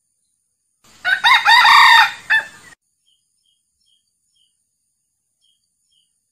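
A male red junglefowl crowing once, a short crow of under two seconds about a second in, with a brief clipped final note.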